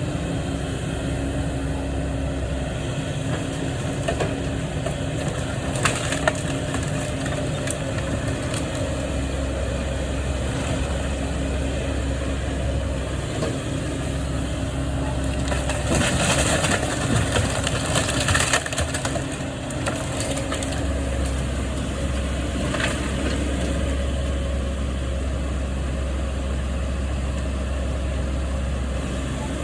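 Heavy machine engine running steadily during a building demolition, with intermittent crunching and clattering of walls and debris being broken, loudest for a few seconds a little past halfway.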